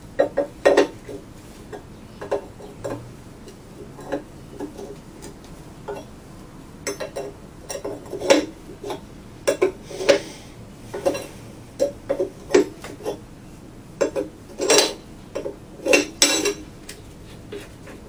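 Socket wrench clicking and clinking against metal in irregular short bursts while the main bearing cap nuts are loosened on an antique hit-and-miss engine.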